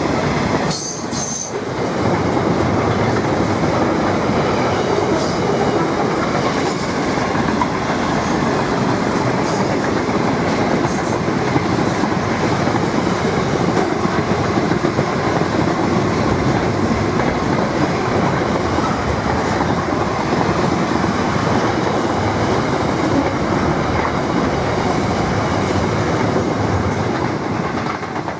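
Freight wagons loaded with steel coils and shipping containers rolling past at speed: the steady, loud noise of steel wheels running on the rails, with a brief dip about a second and a half in.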